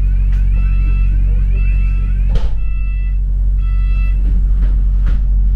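Bus engine's low steady hum heard from inside the bus. An electronic tone warbles and then beeps for about four seconds, and two sharp knocks come about halfway through and near the end.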